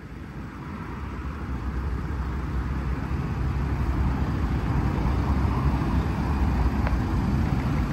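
Steady low rumble of road traffic, fading in over the first couple of seconds.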